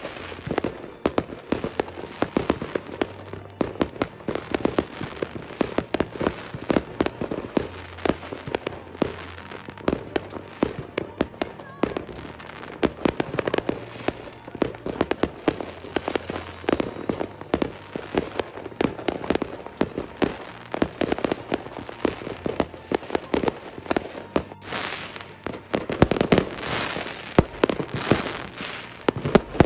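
Many fireworks going off at once: a continuous run of bangs and pops from aerial fireworks, growing into a dense crackle near the end.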